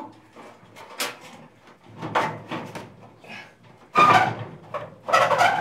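Suburban NT-34SP RV furnace being slid back into its sheet-metal box: metal scraping and clattering as it catches, with a sharp click about a second in and the loudest scrapes near the end.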